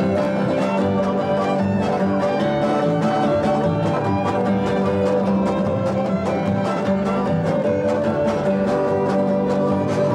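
Old-time fiddle tune played by a jam of fiddles with guitar backing, over a steady, even strummed beat.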